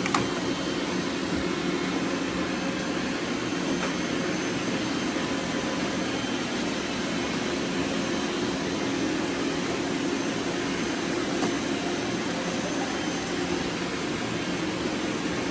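Robot vacuum cleaners running, a steady whirring hum of motors and brushes.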